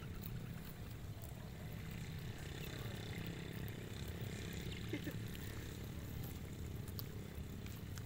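Sheep grazing close by, cropping short grass with a few faint crunches, over a steady low rumble.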